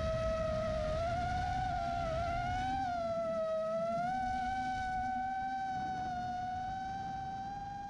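Background electronic music ending on one long synth note that wavers slightly in pitch and slowly fades out.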